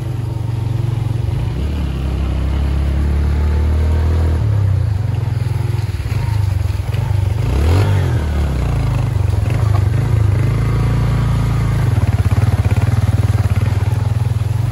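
Motorcycle engine running, its pitch stepping up and down with the throttle.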